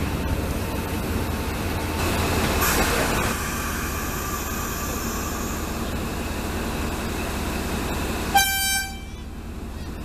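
Sri Lanka Railways Class W3 diesel locomotive running with a steady rumble that swells briefly about two seconds in, then one short horn toot, about half a second long, near the end.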